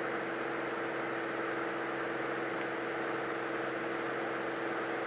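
Cirrus SR22's six-cylinder piston engine and propeller, a steady, even drone with a constant hum, heard through the headset intercom feed.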